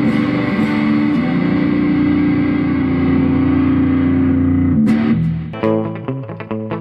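Distorted electric guitar on a 335-style semi-hollow body, held chords ringing out through an amplifier for about five seconds. Then it gives way to a quicker run of short plucked notes.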